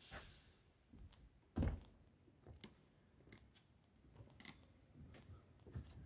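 Footsteps on a wooden floor, about one a second, with a louder low thud about one and a half seconds in.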